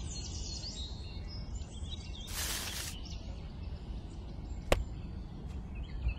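Steady low background rumble with faint high chirps, a brief hiss a little before the middle, and one light tap about three-quarters of the way through.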